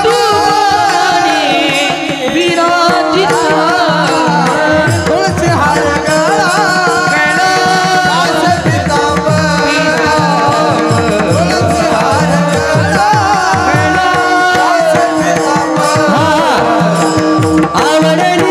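Indian devotional music: a wavering melody over a steady drone, with tabla playing a fast rhythm. Its bass drum's strokes slide down in pitch.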